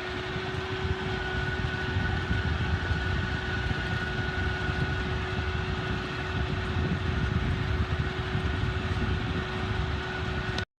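Farm machine's engine running steadily, a low rumble with a steady whine over it, cutting off abruptly near the end.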